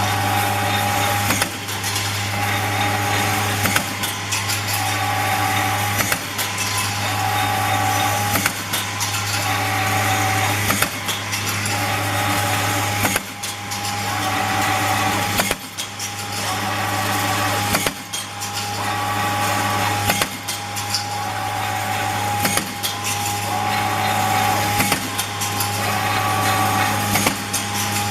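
CNC wire straightening and cutting machine running in repeated cycles: a steady motor hum under the noise of wire feeding through, broken by a sharp clack about every two and a half seconds.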